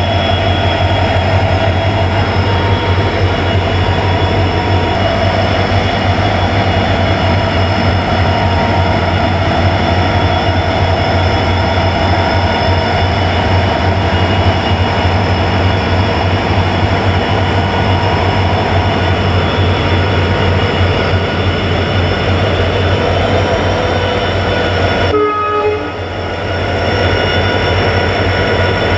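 Twin EMD diesel locomotives, a WDG4D and a WDG4 with two-stroke V16 engines, running steadily while hauling a goods train: a loud, deep hum with a steady whine above it. The sound dips briefly about 25 seconds in, then carries on.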